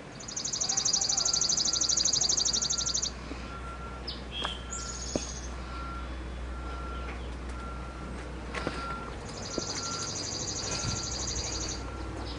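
A songbird sings a long, rapid, high-pitched trill twice, each lasting about three seconds. Between the trills a faint short beep repeats at an even pace, with a few light clicks.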